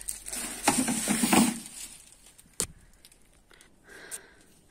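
Rustling handling noise in the first second or so, then a single sharp click, then near quiet.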